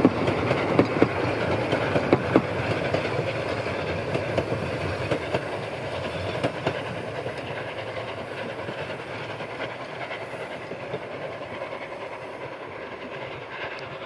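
Narrow-gauge steam train of Saxon IV K locomotive 99 1542-2 and its wooden-bodied coaches rolling away, the wheels clacking over the rail joints, sharpest in the first couple of seconds. The rumble fades steadily as the train recedes.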